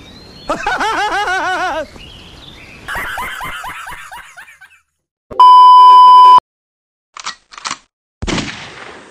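Edited meme sound effects: two bursts of high, rapid laughter, then a loud beep tone held for about a second, then two short swishes and a thud near the end.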